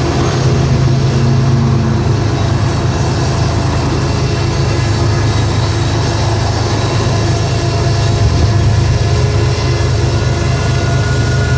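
Train running past: a steady loud low rumble with a few faint held tones above it.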